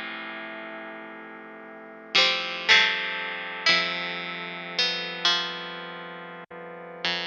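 Plucky digital synthesizer notes played through a Strymon Iridium amp-and-cab simulator pedal, giving a slightly distorted, guitar-amp-like tone. A held note fades away, then six single notes strike at uneven intervals, each ringing and dying slowly, with a split-second dropout just before the last one.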